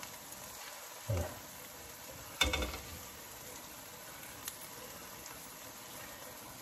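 Thick masala gravy with aubergines sizzling gently in oil in a pan on low gas, the oil beginning to separate at the edges. A soft thud about a second in and a sharper knock about two and a half seconds in.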